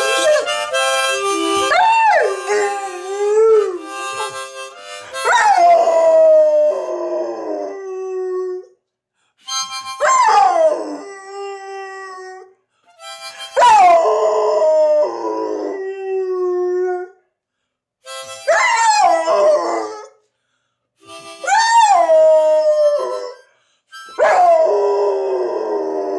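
Rottweiler howling along to a harmonica: seven drawn-out howls a few seconds apart, each swooping up and then sliding down to a held lower note, with harmonica notes beneath and short pauses between the bouts.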